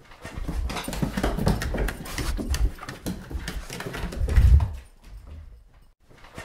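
Golden retriever running down wooden stairs: a rapid, uneven patter of paw footfalls with sharp clicks, and the heaviest thud about four and a half seconds in. After that only a few lighter steps follow.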